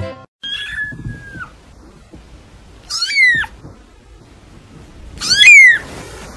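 Very young kitten mewing: two short, high-pitched mews that rise and fall in pitch, about three and five seconds in, the second the loudest. A thinner, level cry that drops at its end comes about half a second in.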